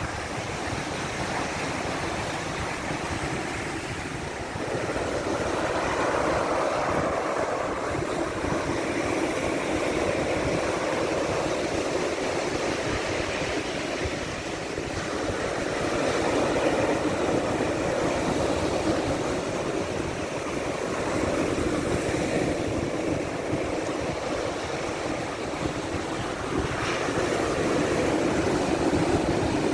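Black Sea surf: waves washing in steadily. The sound swells louder with each incoming wave, every several seconds.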